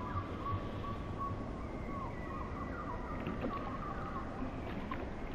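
Background music: a slow ambient passage of sustained, slowly wavering tones over a low hum.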